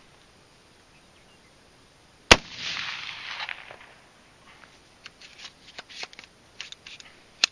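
Single shot from a mud-covered AR-15 rifle about two seconds in, the report trailing off in an echo for about a second. A few light clicks follow, and a second, quieter sharp crack comes at the very end.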